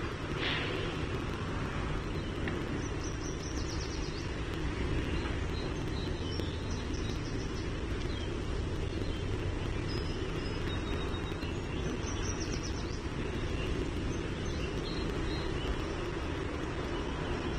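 Outdoor ambience with a steady low background rumble. A small songbird's high, rapid trill comes in three times, about 3, 7 and 12 seconds in.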